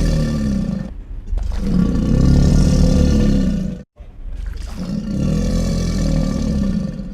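Alligator growling: long, deep, rumbling growls of two to three seconds each. One trails off about a second in, the next runs until it cuts off abruptly near the middle, and a third follows close after.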